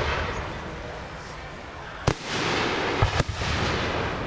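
Aerial fireworks shells bursting: one sharp bang about two seconds in, then two close together about a second later, with a rushing hiss after the bursts.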